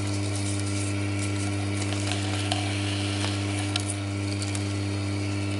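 Electric tobacco shredder running with a steady motor hum while it cuts chopped tobacco leaf, with a few faint ticks from the leaf going through the blades.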